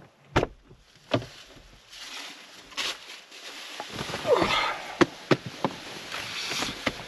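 A car's rear door being opened and a person climbing into the leather back seat: a sharp latch click about half a second in and another knock soon after, then rustling of a padded jacket and several small knocks and creaks as he settles into the seat.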